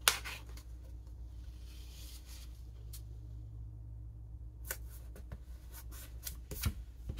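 Hands handling a paper planner page and pressing a sticker into place: faint paper rustles and scattered light ticks, with a sharp click right at the start, over a steady low hum.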